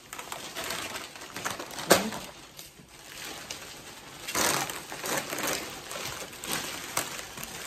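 Thin plastic shopping bags and foil snack-chip bags rustling and crinkling as they are handled and unpacked, in uneven swells, with a sharp knock just before two seconds in.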